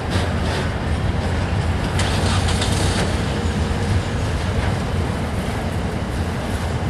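Slow freight train rolling past, a steady low rumble of diesel locomotives and wagons with a couple of sharp clicks about two and three seconds in.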